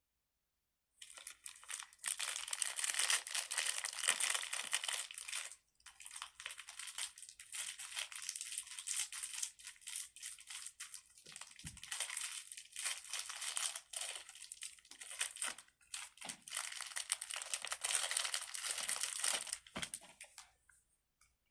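Crinkly wrapping being handled and crumpled, a dense crackling rustle in long stretches with a few brief pauses.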